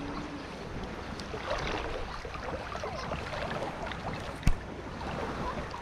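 Shallow seawater sloshing and lapping around someone wading, with faint crackles and one sharp click about four and a half seconds in.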